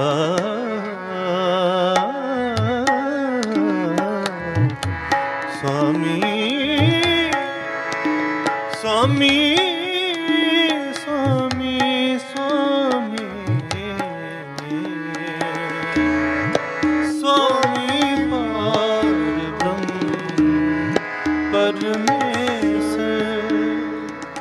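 Sikh Gurbani kirtan: a male ragi sings long, wavering melismatic lines with vibrato, without clear words, over a steady harmonium drone and tabla strokes.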